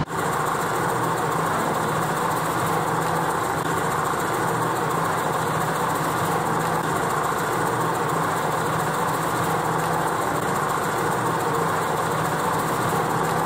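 A motor-driven clay extruder (pug mill) running steadily as wet clay is fed through it, giving an even mechanical drone at one unchanging pitch.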